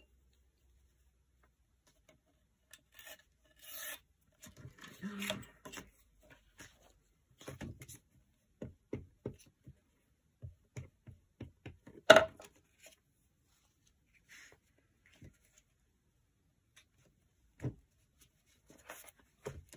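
Hands working paper on a craft table: scattered rustling and rubbing of collage paper, then a run of short, quick rubbing strokes. There is one sharp knock about twelve seconds in, the loudest sound.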